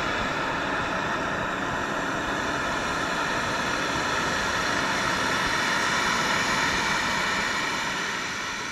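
Steady rushing of a stainless steel pot of water at a full rolling boil on a Coleman propane canister stove, with the burner's hiss mixed in. It fades away near the end.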